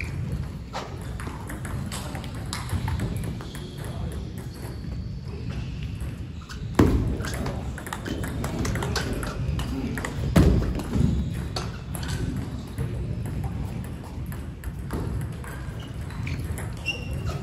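Table tennis rally: the celluloid-type ball clicking off rubber bats and the table top at an irregular pace, with two heavier thuds about 7 and 10 seconds in and a low steady hum of the hall underneath.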